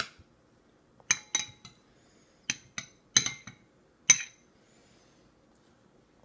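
Metal spoon clinking against a metal-lined bowl as soup is scooped out. About nine sharp, ringing clinks come in the first four seconds, the loudest a little after four seconds.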